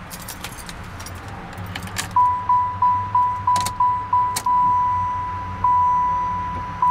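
Keys jingling at the ignition of a 1994 Cadillac Fleetwood Brougham. About two seconds in, the car's electronic warning chime sounds with the key turned on: a single-pitched ding repeating about three times a second, then longer held tones.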